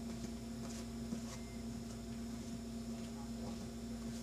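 Quiet room tone: a steady low hum, with a few faint light taps and rustles scattered through it.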